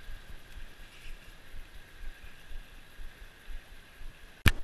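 Steady rush of a fast-flowing river, with uneven low wind buffeting on the microphone and one sharp click near the end.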